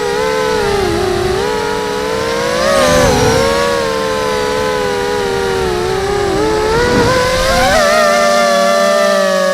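Brushless motors and propellers of a QAV250 racing quadcopter whining in flight, the pitch falling and rising repeatedly as the throttle is worked, with gusts of rushing noise around the climbs and settling to a steady whine near the end.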